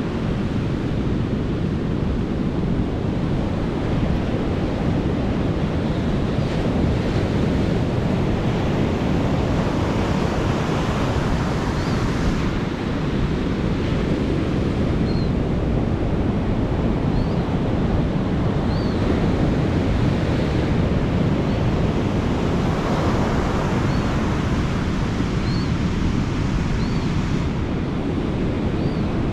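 Ocean surf breaking on a sandy beach, a steady rush of waves with wind on the microphone. Faint short high chirps come now and then in the second half.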